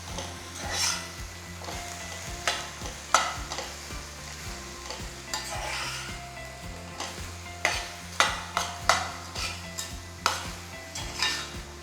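A vegetable filling of mushrooms, baby corn, spinach and tomato puree sizzles in a pan, being cooked down to dry off its water. A spatula stirs it, scraping the pan in short strokes, several in quick succession near the end.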